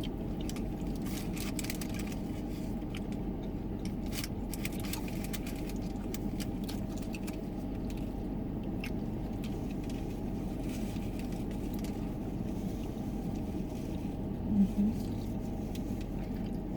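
Steady hum of a parked van's engine idling with the air conditioning running, with scattered light clicks in the first few seconds and a brief low murmur of a voice near the end.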